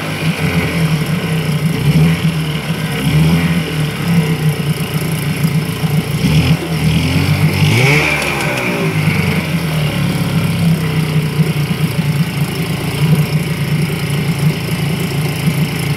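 Evinrude 6 hp two-stroke outboard motor running in a test barrel of water. Its engine note is steady except around the middle, where the revs rise and fall.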